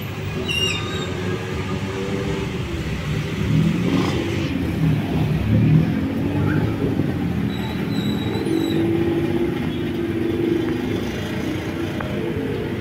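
Busy street traffic: the engines of motorcycles and minibuses running and passing, in a steady low mix, with an engine climbing in pitch about four to six seconds in.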